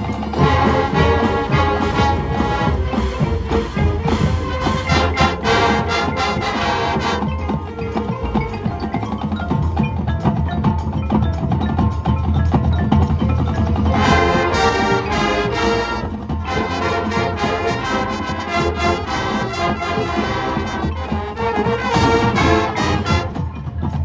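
High school marching band playing its competition field show, with a front-ensemble pit of marimbas and other mallet percussion prominent. The texture thins for several seconds from about a third of the way in, then the full band comes back past the middle.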